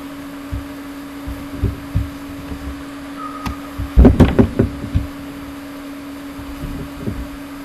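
A steady electrical hum runs under a few soft low thumps. About four seconds in comes a loud cluster of knocks and thumps lasting about a second.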